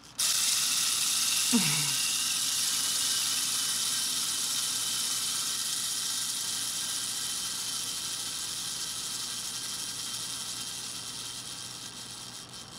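Spring-driven clockwork motor of a wind-up toy outboard-motor mug mixer, released and running, its gears whirring steadily as its propeller stirs coffee in a mug. It starts suddenly just after the beginning and slowly grows quieter as the spring unwinds.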